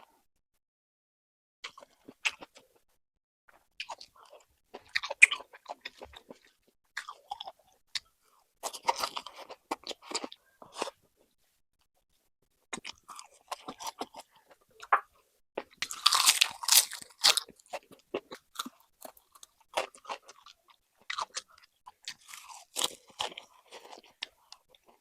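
Close-miked chewing and crunching of food, likely raw vegetables eaten with the braised pork intestine, in irregular bouts of crisp bites with short pauses between them. The busiest stretch of crunching comes about two-thirds of the way in.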